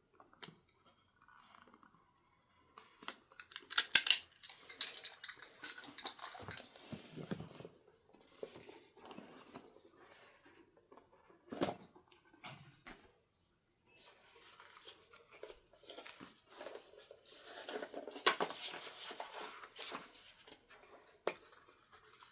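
Mouse box being unpacked by hand: cardboard and plastic packaging rustling and scraping, with scattered sharp clicks and knocks. It is busiest twice, about three to eight seconds in and again around eighteen to twenty seconds.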